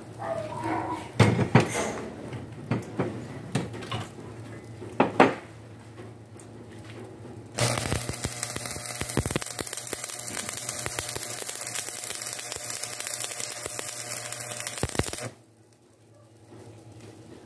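Shielded metal arc (stick) welding on steel bar: the arc crackles and sizzles steadily for about seven and a half seconds, starting a little before the middle and cutting off suddenly near the end. Before it there are a few sharp metallic knocks and clicks.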